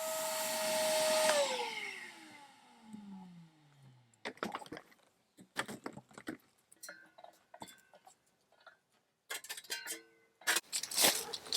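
An electric motor runs with a steady whine for about a second, then is switched off and winds down, its pitch falling over a couple of seconds. Scattered light knocks and clicks follow, and a louder rustling clatter starts near the end.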